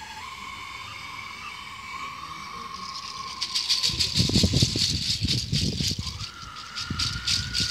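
A ritual hoof rattle of dried llama and alpaca hooves, shaken hard in a dense, fast rattle from about three seconds in, with dull knocks beneath it. Before the rattle and again near the end a steady high tone sounds.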